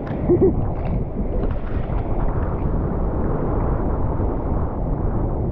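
Seawater sloshing and lapping around a camera held at the surface, with wind buffeting the microphone as a rough steady rumble.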